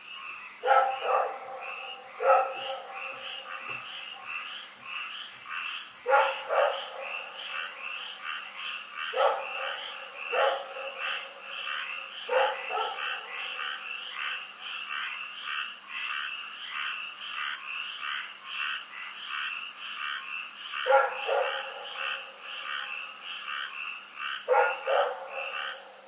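A dog barking, single barks every few seconds, about eight in all, some in quick pairs. Under the barks runs a steady chorus of rapid, high-pitched calls.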